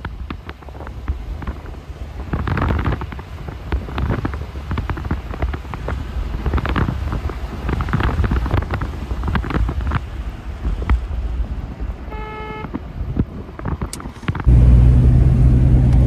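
A car on the move, with wind buffeting the microphone over low road rumble. About twelve seconds in a short horn note sounds, and near the end the sound changes abruptly to a loud, steady, low engine drone.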